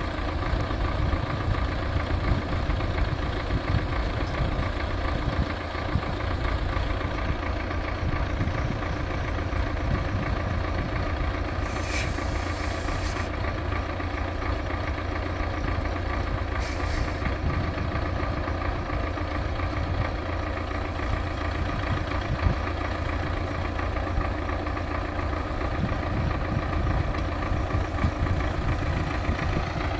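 Tractor engine running steadily, with two short hisses, one about twelve seconds in and a briefer one about five seconds later.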